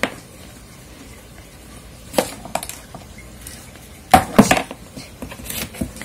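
Ping-pong ball clicking as it bounces off the floor and walls of a clear plastic storage box, batted by a cat's paw: one tap about two seconds in, a quick run of taps around four seconds, and a few more near the end.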